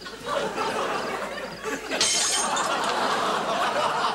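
Laughter from a crowd, with a short sharp crash about two seconds in.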